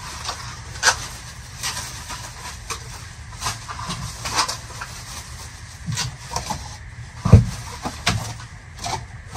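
Irregular clicks, rustles and knocks of things being handled and moved, with one heavier thump about seven seconds in.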